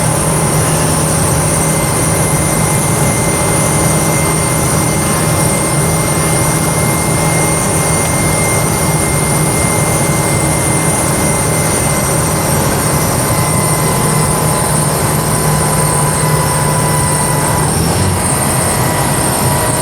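Carburetted VW Voyage 1.8 four-cylinder ethanol engine with an open exhaust pulling steadily in fifth gear at road speed, with the gearbox growling along with it. The steady engine note changes and drops near the end.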